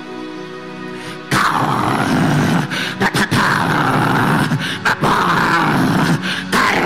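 A soft sustained keyboard pad, then from about a second in a man praying loudly in tongues: a loud, strained voice with short breaks, over the music.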